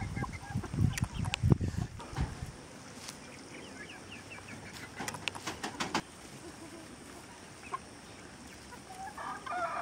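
Chickens clucking, with low bumps and a few sharp clicks in the first couple of seconds, short chirping calls after that and one pitched call near the end.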